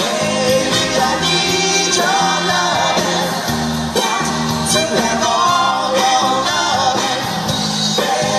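Live band playing a song with a singer: sung melody over a steady bass line and drums.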